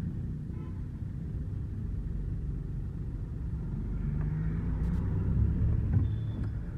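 Mahindra Bolero diesel engine and road noise during a test drive, a steady low rumble. The engine runs without the knocking it had before its injectors were replaced and coded.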